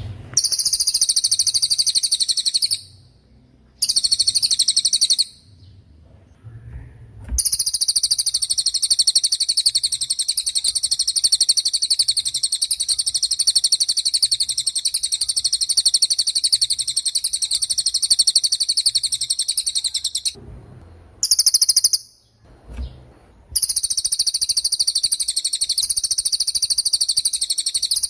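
Cililin songbird singing long, high-pitched, rapid trills. The longest runs about 13 seconds, and there are short breaks between the other bouts.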